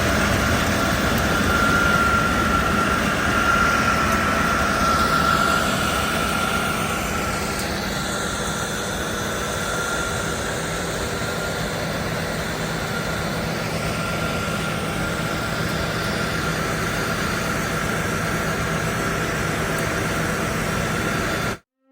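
John Deere 9670 combine harvester running steadily, a continuous machine drone with a steady high whine over it, cutting off abruptly near the end.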